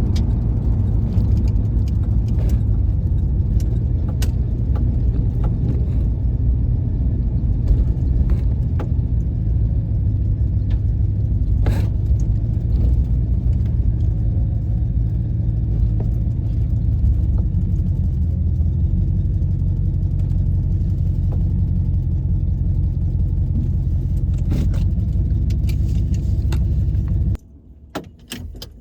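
1996 Chevrolet Impala SS's LT1 V8 and road noise, a steady low rumble heard from inside the moving car, with a few faint clicks; the owner is listening for a suspected exhaust leak. The sound cuts off abruptly near the end.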